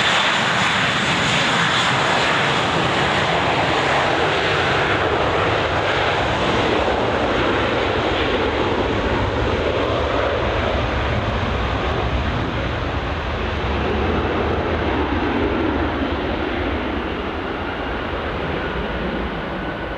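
Airbus A320-232 jet engines (IAE V2500s) at thrust on the takeoff roll: a loud, steady rushing jet noise with a faint high fan whine. The hiss and whine dull from about halfway through and the sound slowly fades as the jet runs away down the runway.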